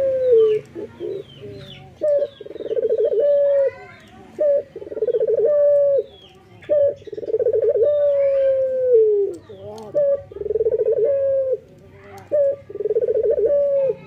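Male ringneck (Barbary) dove cooing over and over, each call a short note followed by a longer rolling coo, about six calls in all; the longest coo, in the middle, slides down in pitch. Faint high chirps of small birds behind.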